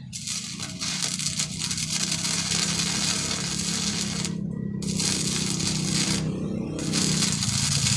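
Arc welding with a Powerhouse multi-process welder: a steady, loud crackle of the arc, broken twice for a moment about halfway through and again later, with a low hum underneath.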